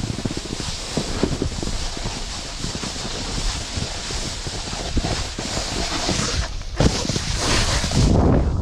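Snowboard riding over snow: the board's base and edges scrape and hiss with a run of rough knocks and clatters over bumps, mixed with wind on the microphone. A louder, hissing scrape near the end, as of a hard carved turn.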